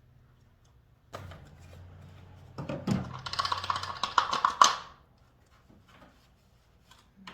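A short spell of rapid clicking and rattling, lasting about two seconds, as objects are handled while work is done on the truck, with a faint low hum before it.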